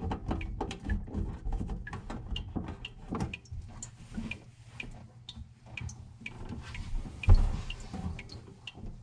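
Irregular clicks, taps and knocks of someone moving about and handling things at a kitchen sink, with one heavy thump about seven seconds in.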